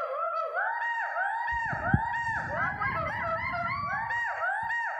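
Gibbons calling: a fast, continuous series of whooping notes that each rise and fall in pitch, overlapping as if more than one gibbon is singing at once.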